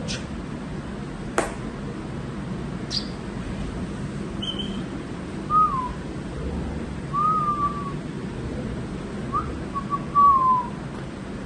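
A person whistling a few short, sliding notes to draw a puppy's attention, after a few sharp clicks in the first three seconds.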